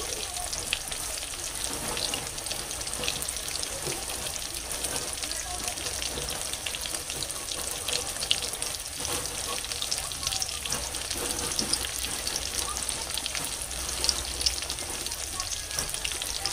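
Gram-flour-battered chicken pakoras frying in hot oil in a wok: a steady sizzling hiss dotted with small crackles and pops.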